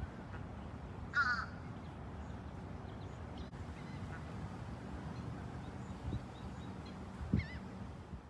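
Two short, harsh bird calls, one about a second in and another near the end, over steady low background noise.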